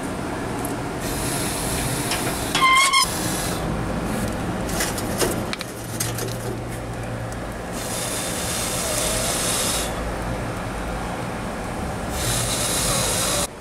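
Long breaths blown onto glowing coals in an offset smoker's steel firebox to get fresh wood chunks to catch: three long whooshing blows. About three seconds in, the firebox door's hinge squeals as it opens, then knocks of metal and wood as the logs are handled, over a low steady hum.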